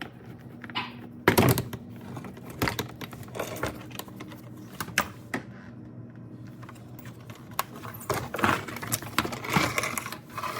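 Irregular clicks, knocks and rattles of plastic fasteners and tools being handled as the car's plastic undercarriage cover comes off, with one sharp knock about a second in.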